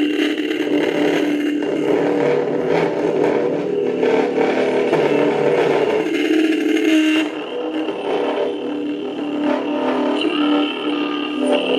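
Electric bike horn driven by an audio amplifier, giving a loud, continuous, distorted tone that wavers in pitch. It drops a little in level for a few seconds from about seven seconds in.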